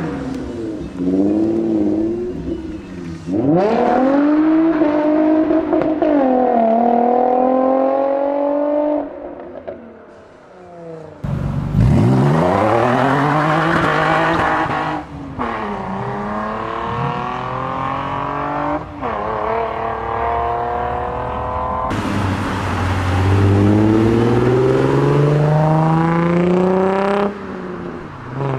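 Nissan VQ35DE 3.5-litre V6 engines revving and accelerating, their pitch sweeping up and dropping back, in several clips cut together.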